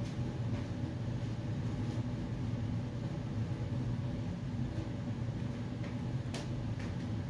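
Steady low mechanical hum of household machinery running in a kitchen, with a few faint ticks, the clearest about six seconds in.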